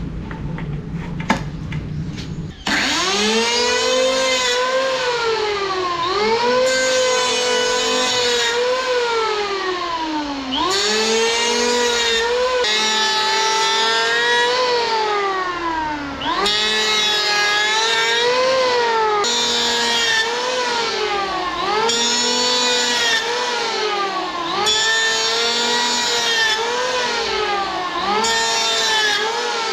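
A few faint clicks, then about three seconds in a Powerhouse PHM-1900BX 700-watt electric planer starts. It runs through repeated passes over a 2x3 pine board, and its high motor whine drops in pitch each time the cut loads it and rises again as the blade frees.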